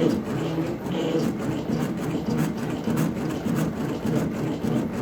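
CNC machine running, its motors whirring in short, evenly repeated strokes with light clicking.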